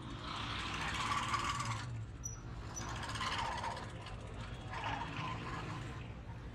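Busy street traffic: auto-rickshaw and motorcycle engines running close by as a steady low hum, with three louder surges of noise from passing vehicles.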